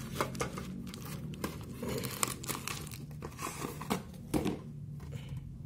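Clear plastic wrap crinkling and crackling as it is pulled off a packaged DVR unit, a run of irregular sharp crackles that dies down near the end.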